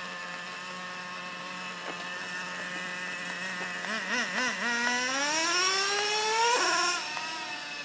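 Traxxas Revo nitro RC truck's small glow engine idling steadily, then a few quick throttle blips about four seconds in and a long rising rev as the truck accelerates away, falling off near the end. The engine is brand new and still being broken in.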